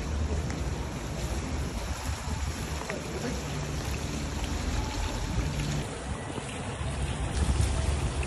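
Water running down a stepped cascade, a steady rushing with a low rumble under it.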